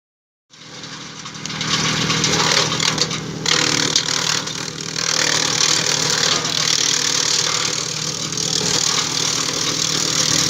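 DURKYA 600T heavy-duty shredder running with a steady machine hum while drumstick tree branches are fed in and chopped, a dense chopping noise over the hum. It starts about half a second in and builds to full level over the next second.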